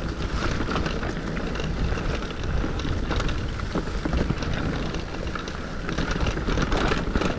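Luna X1 electric mountain bike's Maxxis Minion tyres rolling over dry leaf litter: a steady crackling rustle dotted with many small clicks and knocks, over a low wind rumble on the microphone.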